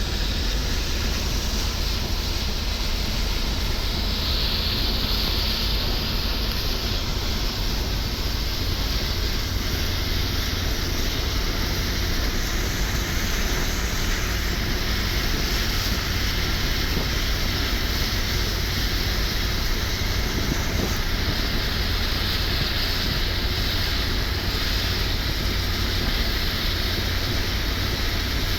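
Car driving at highway speed on a wet road: a steady low rumble with an even tyre-and-rain hiss over it.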